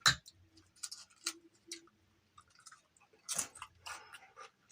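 Close-up chewing and crunching of crisp chips: one sharp crunch at the start, a few smaller crunches about a second in, and another cluster of crunching near the end.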